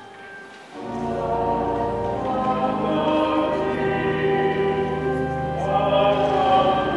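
Cathedral pipe organ music with singing. The organ fades to a quiet moment, then comes back in full about a second in with deep bass notes under sustained chords and voices.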